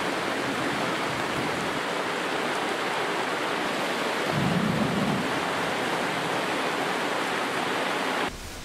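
Heavy rain falling steadily on a wooden deck and gravel, a dense even hiss, with a brief low rumble about four and a half seconds in. It cuts off suddenly near the end.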